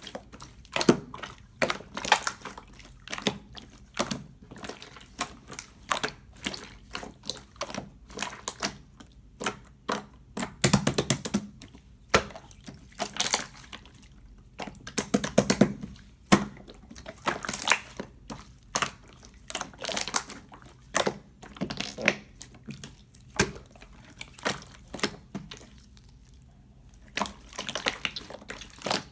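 Clear slime being worked by hand: a dense, irregular run of sticky clicks and crackling pops, with a few louder clusters and a thinner stretch near the end.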